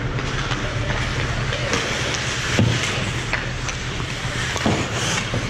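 Ice hockey game sound in a rink: a steady low hum under spectator chatter and skates on the ice, with several sharp knocks from sticks and puck, the loudest about two and a half seconds in.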